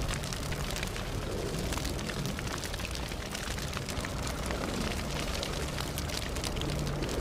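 Steady low rumble under faint, scattered crackles, an ambient sound-effect bed with no clear single event.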